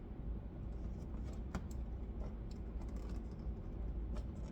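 Scattered light clicks and taps of plastic door-trim parts being handled and pushed into place, over a low steady hum.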